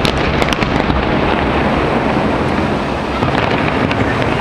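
Rumble of fireworks going off, with a few sharp crackles in the first second, under a steady rush of wind on the microphone.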